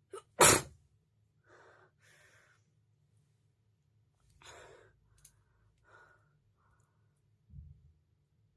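A woman's sharp, loud sneeze about half a second in, followed by several softer breaths and sniffs.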